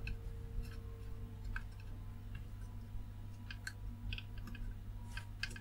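Faint, scattered small clicks and taps of a soldering iron tip and a pointed prying tool against a diode's leads and the circuit board as the diode is heated and levered out, over a steady low hum.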